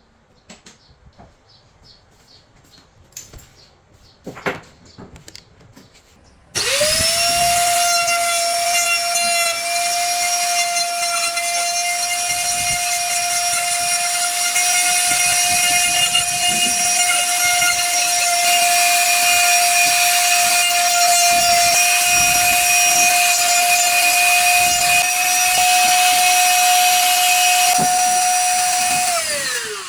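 Handheld wood router starting up with a quick rising whine, then running at a steady high pitch while it cuts wood. Near the end it is switched off and its pitch falls as the bit spins down. A few light clicks and knocks come before it starts.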